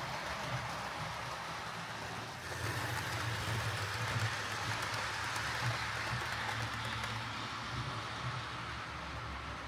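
Jouef TGV model train running on track, its motor and crude gearing whirring with wheel noise on the rails. The sound grows louder about two and a half seconds in, then eases off a little. It is a wee bit noisy, from crude gearing and a low-quality motor.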